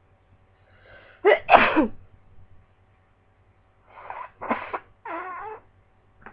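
A person sneezes loudly about a second in: a short breath in, then a sharp explosive sneeze in two quick bursts. A few softer vocal sounds follow about four seconds in.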